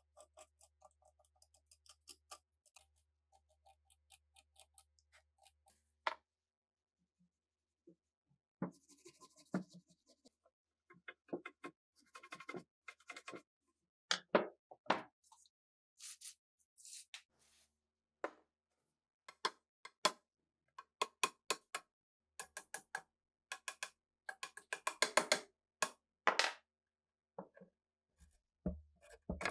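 Rusted steel machine-gun barrel being worked by hand: first faint scratching of a metal pick scraping rust from between the barrel's cooling fins, then, from about eight seconds in, many sharp metallic clicks, taps and short scrapes as a clamp on the barrel is handled and worked.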